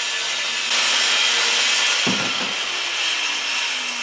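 Handheld electric circular saw running at full speed and cutting through a board, getting louder as the blade bites into the wood about a second in. Its low motor hum drops slowly in pitch in the second half as it works under load.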